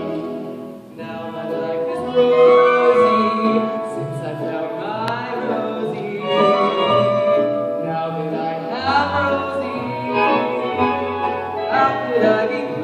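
Live musical-theatre song: singing over an instrumental accompaniment.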